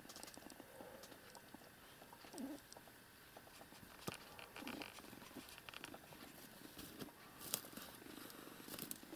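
Faint sounds of a mother cat washing her kitten: soft licking and rustling of bedding, with faint purring.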